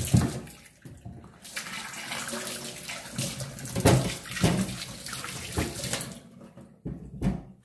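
Kitchen tap running onto halves of a dried coconut being rinsed in a stainless steel sink, water splashing off the shell and the sink bottom. The water stops about six seconds in, followed by a few light knocks.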